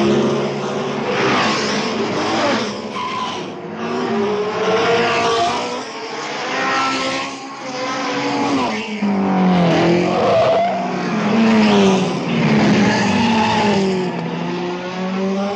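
Formula One race car engines from the 1.5-litre era revving hard as the cars pass one after another. Several engine notes overlap, their pitch rising and falling repeatedly through the gears.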